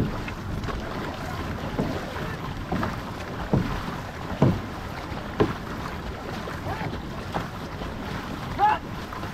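Water rushing along the hull of an outrigger canoe under way, with wind on the microphone. Paddle blades splash into the water about once a second as the crew strokes hard.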